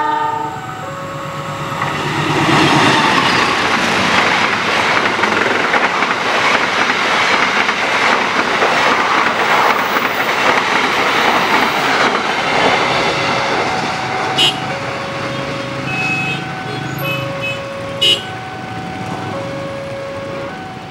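A CC 206 diesel-electric locomotive (GE C20EMP) sounds its horn briefly, then it and its passenger coaches run past close by, engine running and wheels clattering over the rail joints. As the coaches go by, a level-crossing alarm sounds a two-tone chime that alternates about once a second. Two short, sharp sounds come partway through it.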